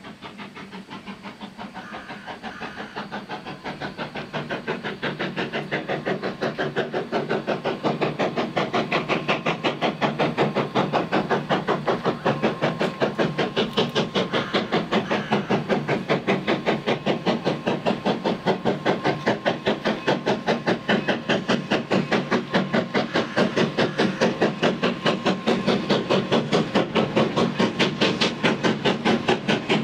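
Narrow-gauge steam locomotive working in with a train, its exhaust beating rapidly and evenly with steam hiss. The beat grows louder over the first several seconds as it approaches, then holds steady.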